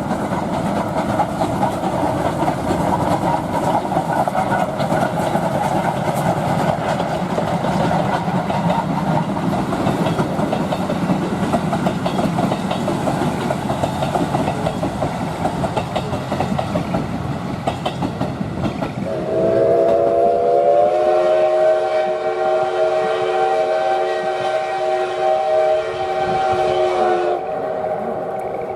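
SL Yamaguchi steam train running loudly along the track, then about two-thirds in a long whistle blast that rises slightly as it opens, holds steady for about eight seconds and cuts off.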